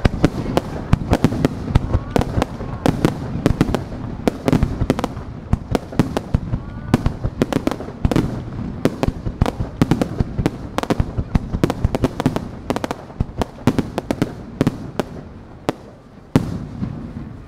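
Fireworks barrage: aerial shells bursting in rapid succession, several sharp bangs a second over a continuous low rumble. The bangs thin out near the end, with one last loud bang.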